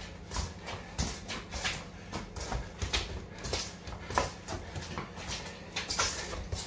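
Quick footwork on a concrete floor: trainers tapping and scuffing, mixed with the soft thuds of a football being dribbled and turned, several irregular touches a second.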